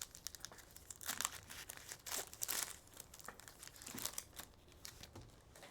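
Crinkling and tearing of foil trading-card pack wrappers (Panini Select football hobby packs) being ripped open and handled, as a run of uneven rustles and crackles.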